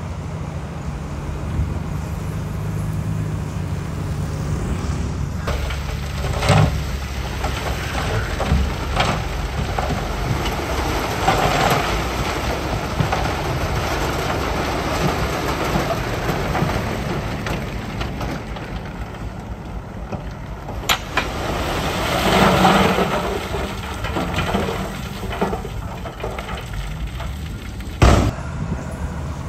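Heavy diesel earthmoving machinery working rock: a steady low engine rumble, with sharp metallic clanks about six seconds in, around twenty-one seconds and near the end, and two louder stretches of coarse noise in between.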